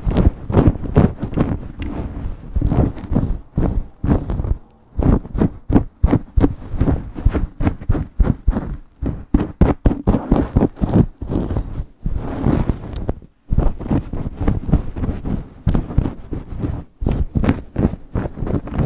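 Fingers and long pointed nails scratching and rubbing fast through hair and over the scalp in a vigorous scalp massage: rapid, irregular rustling strokes, with a few brief pauses.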